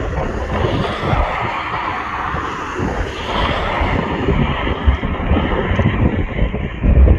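Jet engines of a Boeing 767 freighter running steadily as it rolls along the runway, with gusty wind buffeting the microphone underneath.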